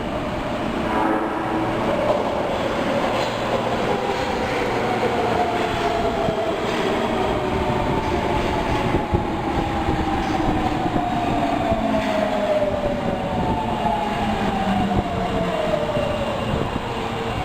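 Osaka Metro Tanimachi Line subway train running, its motor whine falling steadily in pitch as the train slows. Wheels click over the rail joints underneath.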